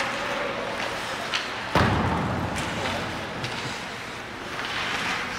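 Ice hockey play: a few sharp stick-and-puck clicks and one loud bang with a low thud a little under two seconds in.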